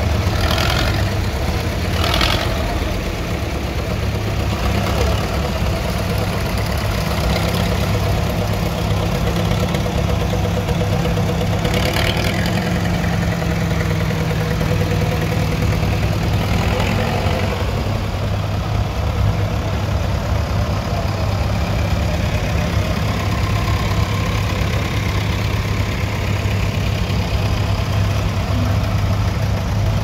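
Several vintage farm tractor engines running at low revs as a slow line of tractors passes close by: a steady, continuous engine rumble.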